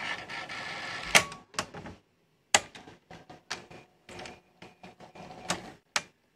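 VHS video recorder's tape mechanism working through its cassette load and threading. A motor whirs for about a second, then comes a string of sharp mechanical clicks and clunks with smaller ticks between.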